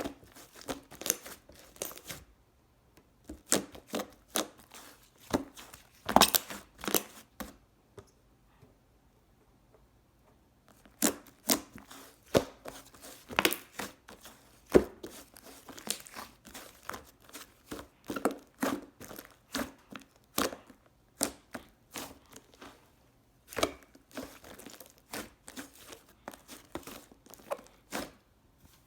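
Pink-and-purple mixed slime being squished and poked by hand, giving irregular sharp clicks, pops and crackles, with a pause of a few seconds about a third of the way in.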